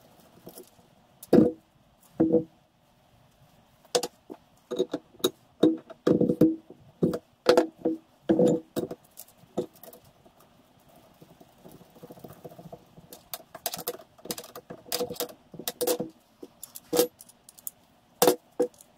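Irregular clinks and knocks of steel tools being handled and set down on a workbench: a reamer's pilot bar and tap wrench being fitted into a radius arm held in a vice. Several strikes ring briefly, and they come thicker in the second half.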